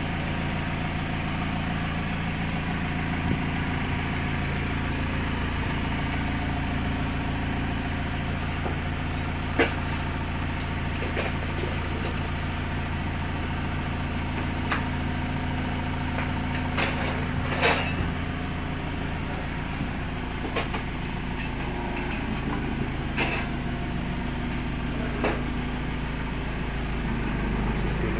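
Ride-on street sweeper running steadily while its rotating side brush sweeps a concrete road: a constant low machine hum, with a few sharp clicks and ticks scattered through it.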